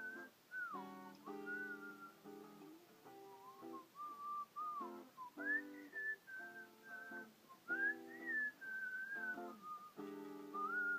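A whistled melody, pure notes gliding up and down, over strummed acoustic guitar chords.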